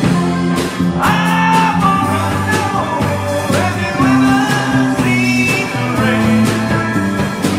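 Live rock band playing: electric guitars, bass and drum kit, with a man singing lead from about a second in.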